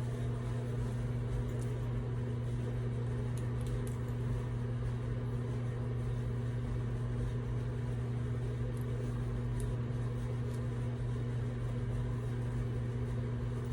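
Steady low electrical hum, like a fan motor or appliance running, unchanged throughout, with a few faint light ticks.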